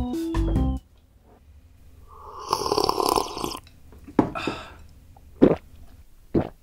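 Ramen noodles slurped loudly from the bowl for about two seconds, then a shorter second slurp, followed near the end by a couple of short gulps as a drink is swallowed.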